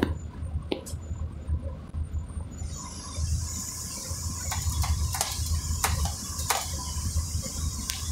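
Ride noise inside a moving city bus: a steady low engine and road rumble, joined about three seconds in by a high hiss, with a few scattered clicks and rattles in the second half.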